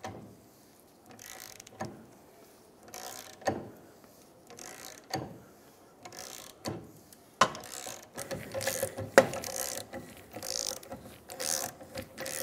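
Ratchet wrench clicking stroke by stroke as it turns the screw of a manual ball joint press, pressing a rusted upper control arm bushing out of the control arm. The clicks come in short sets about every second and a half, then faster from about halfway, with the loudest click about nine seconds in.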